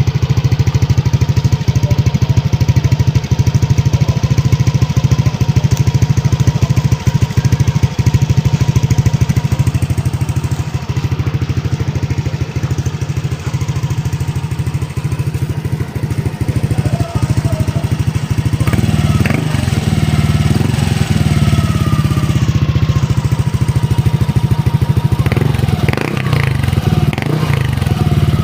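Yamaha motorcycle engine running through an MT8 aftermarket exhaust with a stainless tip, idling with a steady, rapid exhaust beat. It gets louder about two-thirds of the way through, with brief changes in pitch near the end.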